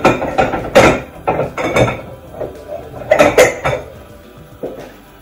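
A cooking utensil knocking and scraping against a frying pan while sweet potato cubes are stirred, a run of clatters in the first two seconds and another about three seconds in.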